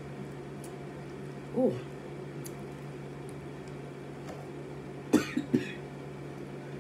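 A person eating: a short hummed "mm" about one and a half seconds in, then three quick, sharp mouth or throat sounds a little after five seconds in, over a steady low hum.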